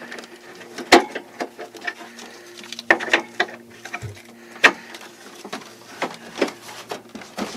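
Scattered sharp clicks and knocks of a flat bungee cord and its hooks being handled against a window air conditioner's case and a wooden cabinet, over a steady low hum.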